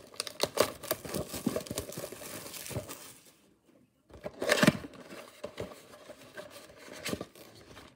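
Plastic wrap being torn and crinkled off a cardboard trading-card box in a run of crackles. After a short pause about three seconds in comes a louder rustle, then lighter clicks and scrapes as the cardboard flaps are pulled open.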